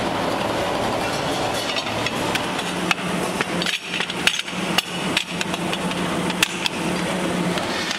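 Sharp metallic knocks and clanks of aluminium pressure-cooker pans being handled against one another, densest in the middle, over a steady factory machinery hum.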